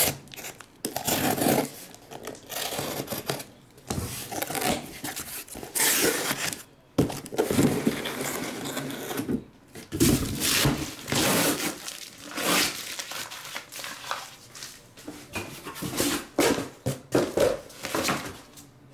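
Sealed cardboard case being opened with a box cutter: packing tape slit and torn, cardboard flaps scraping, and shrink-wrapped card boxes crinkling as they are lifted out and set down, in irregular bursts of rustling and tearing.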